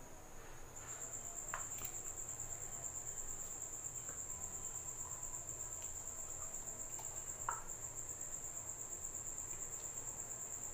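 A cricket chirring in one steady, high, fast-pulsing trill that grows a little louder about a second in. A couple of faint knocks come from the steel grinder jar against the glass bowl as the paste is scraped out.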